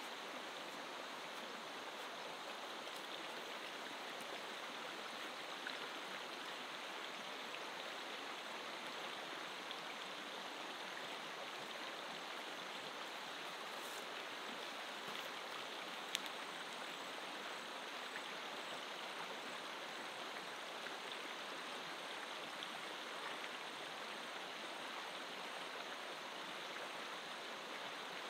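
River water running steadily over a shallow rocky bed, an even rushing sound, with one sharp click about sixteen seconds in.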